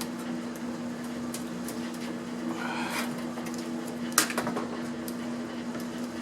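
Scattered clicks and knocks of small parts and tools being handled, with a sharper knock about four seconds in, over a steady low hum.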